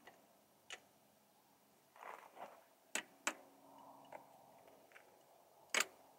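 Faint, sparse clicks and knocks of metal parts and tools as hands work at a dual-sport motorcycle's rear wheel, with a short scrape about two seconds in. There is a quick pair of clicks about three seconds in, and the loudest knock comes near the end.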